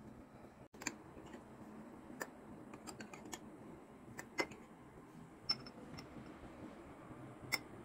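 Light, scattered clinks and clicks of a metal spoon against glass as sauce is scooped from a glass jar into a glass bowl, about ten taps at irregular intervals, the loudest a little past the middle.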